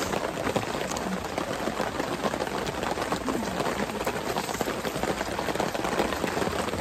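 Steady rain pattering on a tarp overhead: a dense, even patter of drops.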